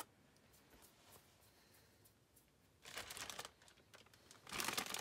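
Mostly quiet, with a brief faint rustle about three seconds in, then a gallon-sized zip-top plastic bag crinkling as it is handled near the end.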